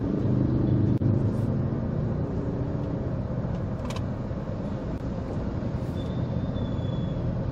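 Honda Jazz heard from inside its cabin, engine running with a low steady rumble of road and traffic while it creeps in a traffic queue. One light click about four seconds in.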